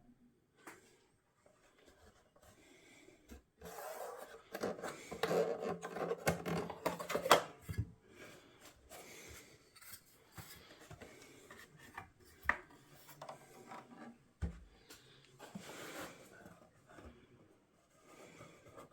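Rubbing and scraping of hands working on an old plastic cassette boombox, loudest for a few seconds from about four seconds in, with scattered sharp clicks and a dull knock later.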